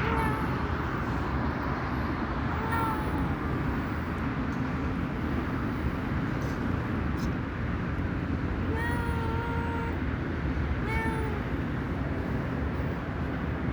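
Cat meowing four times, short calls with the third, near the middle, drawn out for about a second, over a steady low background rumble.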